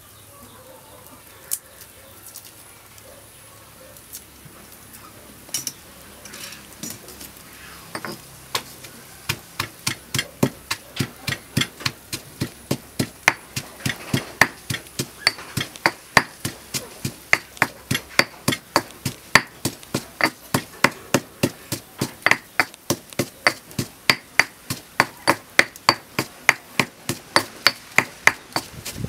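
Pestle pounding ingredients in a stone mortar: a few scattered knocks at first, then from about eight seconds in a steady pounding of about two strokes a second.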